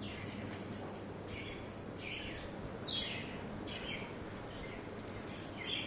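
Alexandrine parakeet giving a string of short, high calls, about one a second, over a steady background hiss.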